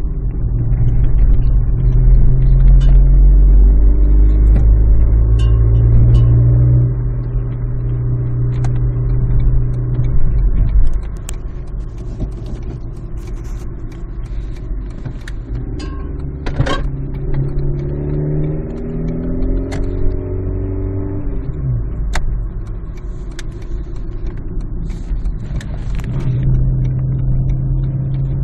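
Motor vehicle engine running with a steady low rumble, louder for about the first ten seconds and then quieter, with a few scattered clicks.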